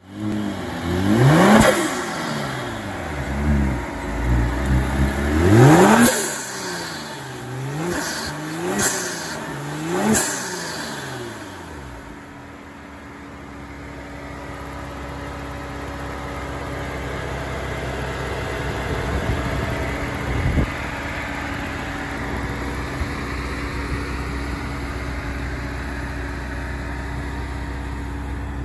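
Kia Stinger GT2's 3.3-litre twin-turbo V6 with Injen intakes and a Borla cat-back exhaust being revved: a rev about a second and a half in, a bigger one around six seconds, then three short blips about a second apart, after which it settles to a steady idle. A single brief knock sounds during the idle.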